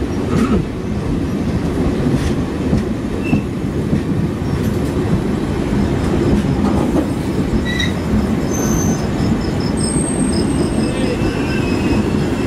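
Passenger coach of an Indian express train rolling on the rails, heard from the open doorway: a steady loud rumble of wheels on track. From about eight seconds in, thin high metallic squeals join it as the train slows into the station.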